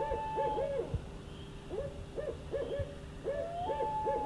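Owl hooting: three quick series of short hoots, some opening with a higher, drawn-out note, over a steady low background rumble.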